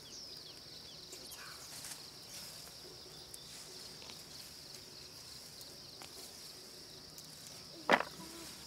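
Steady high-pitched insect buzz in a field, with faint rustling and snapping of peanut plants as the pods are picked off by hand. A brief, loud sharp sound comes about eight seconds in.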